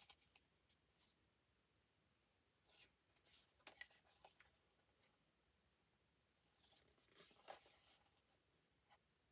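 Faint sliding and rustling of glossy paper posters as they are leafed through by hand, a few soft scrapes in otherwise near silence.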